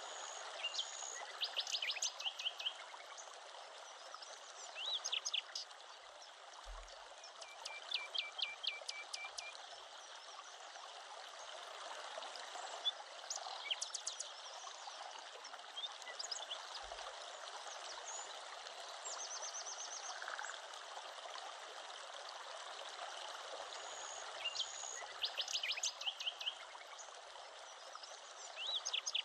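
Birds chirping in short, quick series of repeated notes over the steady rush of a running stream.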